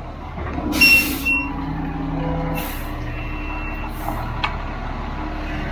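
Concrete mixer truck's diesel engine running steadily as it is manoeuvred into place, with three short hisses of air from its air brakes: about a second in, and again near the middle and two-thirds through.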